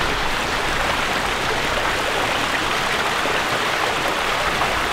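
Water flowing hard and steadily through a trench dug through a beaver dam.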